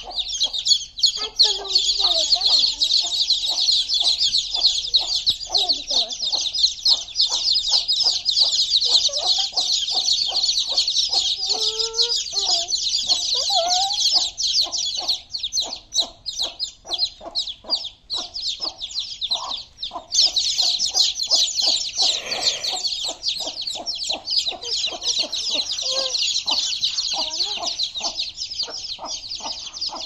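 A crowd of baby chicks peeping nonstop in a dense, shrill chorus, with lower clucking calls mixed in. The peeping breaks off briefly about twenty seconds in.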